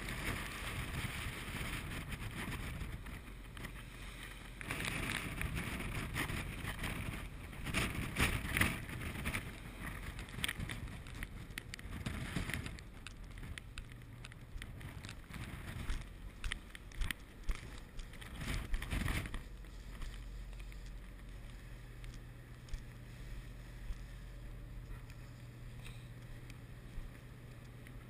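Wind gusting across the open deck of a research ship in heavy seas, buffeting the microphone, with waves and spray rushing along the hull and a few sharp knocks. The gusts ease after about 20 seconds, leaving a low steady hum from the ship under the sea noise.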